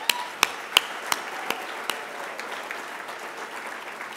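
Audience applauding in a hall, with about six sharp, loud hand claps close to the microphone from the person at the podium, roughly three a second, that stop about two seconds in while the crowd's applause carries on.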